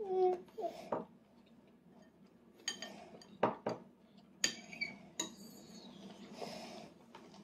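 A brief hum of a voice at the very start, then spoons clinking and scraping against plates: about half a dozen light knocks with a ringing edge between about two and a half and five and a half seconds in.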